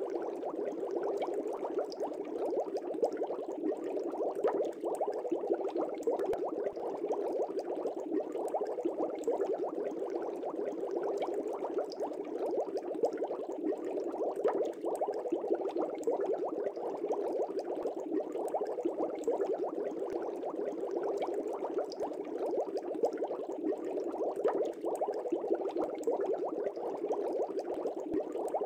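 Aquarium water bubbling steadily, a dense crackle of small bubbles.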